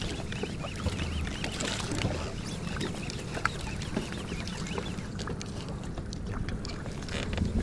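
Water sloshing against a small inflatable boat, with a few light knocks.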